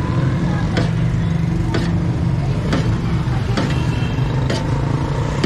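Steady low rumble of roadside traffic and engines, with a sharp click about once a second.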